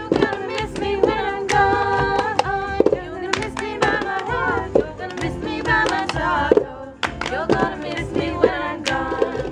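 Female singing over a run of sharp, rhythmic taps and claps as red plastic cups are slapped down, picked up and passed around by hand in a cup-rhythm game.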